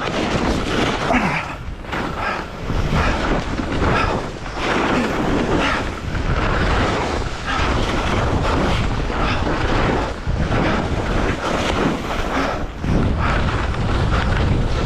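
Wind rushing over an action camera's microphone while skiing downhill, coming in uneven surges, with the hiss and scrape of skis on snow.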